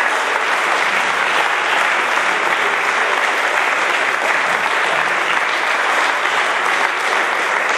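Audience clapping steadily after a player is introduced on stage.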